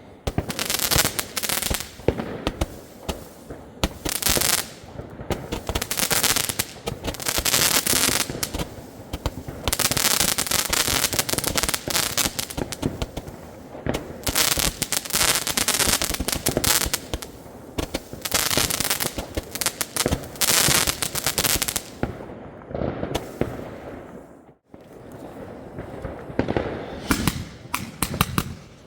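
Consumer firework battery (cake) firing shot after shot, each launch followed by bursts and crackling overhead, in dense volleys. About 25 seconds in it stops, and a brocade-strobe battery starts with a rapid run of pops.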